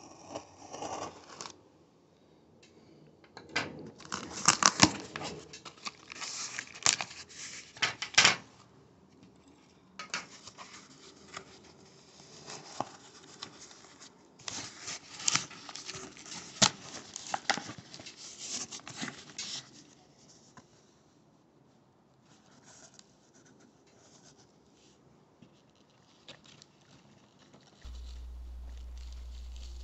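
Utility knife slicing through packing tape and cardboard on a shipping case, in several long bursts of cutting and scraping. The cardboard flaps are then pulled open and handled more quietly. A steady low hum comes in near the end.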